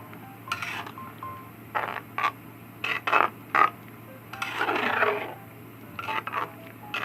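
A utensil scraping and clinking against a cooking pot, several separate strokes, as the tofu and potato curry in coconut milk is stirred.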